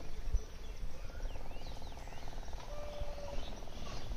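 Small birds chirping in short, quick calls over a steady buzzing drone that fades out just before the end.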